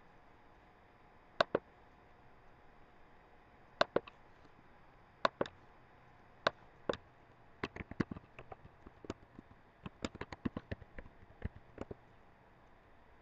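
Computer mouse clicking a few times, each as a quick pair of clicks, then a computer keyboard typing in a fast, irregular run of keystrokes over the last five seconds or so.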